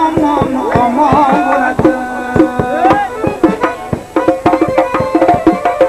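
Instrumental music in a Central Asian or Middle Eastern style: a hand drum plays a fast, busy rhythm under a melody that slides and bends in pitch over a held drone note.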